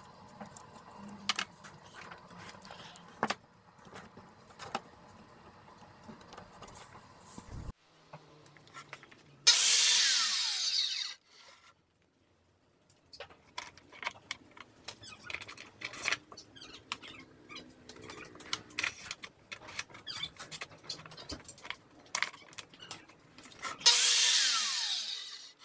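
Bosch hand-held circular saw switched on twice, each run lasting only a second or two, its whine sliding down in pitch as the blade spins down after each release. Small knocks and clicks of handling the saw sled and clamps come between the runs.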